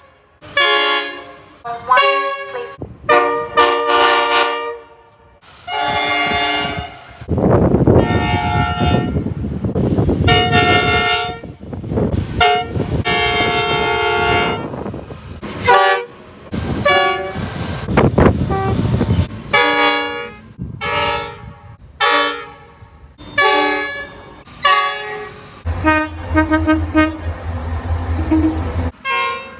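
A quick run of train horn blasts, a dozen or more, some short toots and some held for a second or two, each a chord of several notes. Under the middle of the run the rumble of a passing train runs with the horns.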